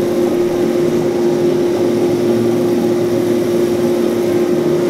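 Coffee roaster running: a steady machine hum with one constant low tone, as the stirring arm turns roasted beans in the cooling tray.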